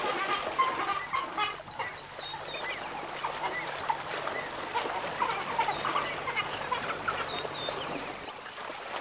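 African wild dogs twittering with many short, high, bird-like chirps while they splash and wrestle in shallow water.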